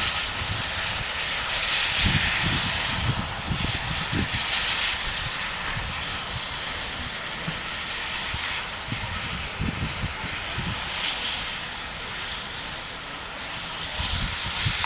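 GWR 'Large Prairie' 2-6-2T two-cylinder steam tank engine working along, with a steady hiss of steam and uneven low exhaust beats, the sound slowly fading as it draws away.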